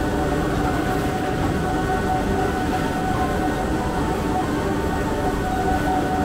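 Gondola lift station machinery running steadily as the cabins move through the station: a constant rumble with a few steady tones held over it.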